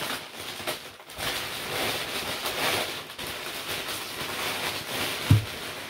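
Brown packing paper rustling and crinkling as a package is unwrapped by hand, with one short low thump about five seconds in.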